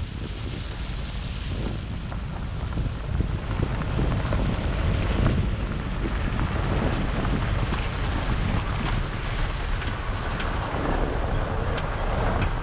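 Wind noise on a microphone mounted outside a moving Mitsubishi Montero, over the steady rumble of its tyres on a gravel track, with small crackles from the stones.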